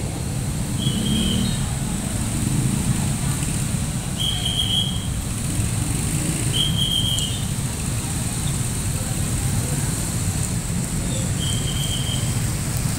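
Idling motorcycles and road traffic, a steady low rumble, with four short high-pitched tones spread through it.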